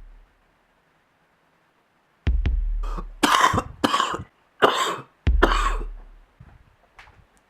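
A person coughs about four times in a row, between deep bass drum hits of a slow electronic beat.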